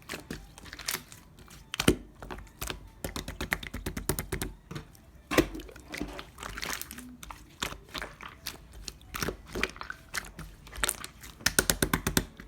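Thick yogurt-textured slime being squished and pressed by hand, giving a run of irregular sticky clicks and small pops, densest near the end.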